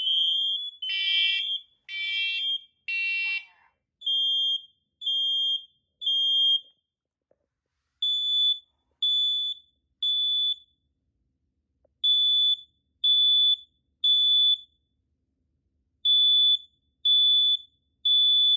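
Interconnected household smoke alarms sounding together after a test from a Kidde HD135F, with several beeps at different pitches overlapping. About four seconds in, all but one stop, leaving a single high-pitched alarm beeping in groups of three: the temporal-three evacuation pattern.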